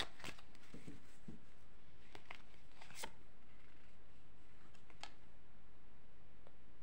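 Divination cards being handled: a few faint, scattered clicks and flicks as a card is drawn from the deck and laid on a cloth, over steady background hiss.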